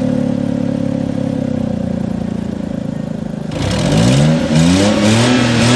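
Car engine running steadily, then revved several times in quick rising sweeps from about three and a half seconds in.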